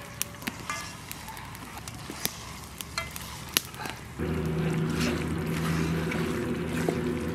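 A green stick stirring chopped goat offal in a steel karahi, giving scattered sharp clicks and knocks against the pan over a light hiss. About four seconds in, a steady low hum with several even tones starts abruptly and holds, like a small engine or motor running.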